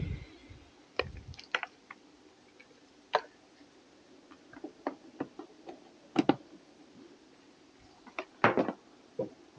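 Scattered clicks and knocks of an e-bike battery charger, its cable and plug being handled and plugged into a portable power station, the loudest about six seconds in and near the end.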